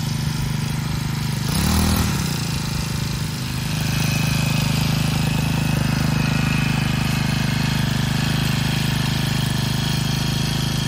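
Backpack brush cutter's small petrol engine idling steadily, with a brief rev up and back down about two seconds in.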